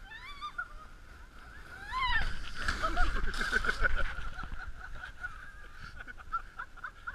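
A rider shrieking twice while sliding down a snow-tube run, then a loud rushing scrape of the tube through snow with thuds as it crashes and tumbles, from about two seconds in until past four seconds.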